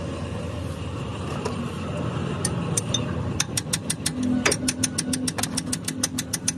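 Small loose metal parts clicking and clinking rapidly, several times a second, starting about halfway through, as hardware is handled and picked from a box at a vehicle's wheel hub. A steady engine hum runs underneath.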